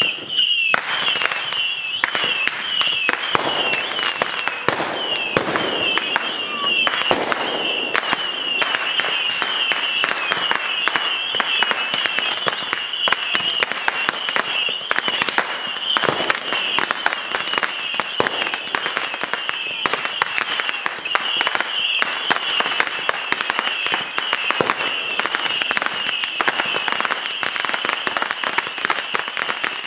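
Fireworks going off in a rapid, continuous barrage: dense sharp cracks and bangs, with a high whistle running through them.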